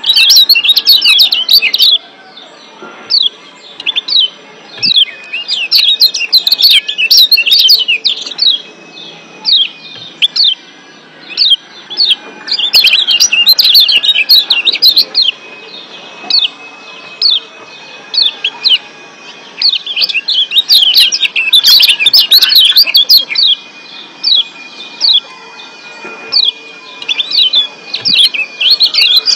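Kecial kuning (Lombok yellow white-eye, a Zosterops) giving its 'ciak' call: bouts of rapid, sharp, high chirps, each lasting one to several seconds, separated by short pauses. A faint thin steady tone runs underneath.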